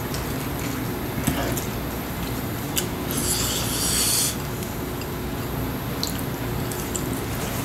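Table-handling sounds while making a cabbage wrap: a few light clicks of chopsticks against ceramic bowls, and a rasping rub lasting just over a second midway as rice and a cabbage leaf are handled.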